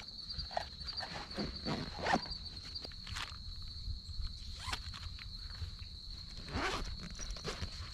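Camp gear being handled and packed up, with scattered rustles, light knocks and footsteps, while an insect trills steadily at one high pitch behind it.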